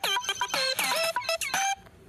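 Children's TV channel logo jingle: a quick run of short, bright electronic notes, several sliding down in pitch, stopping shortly before the end.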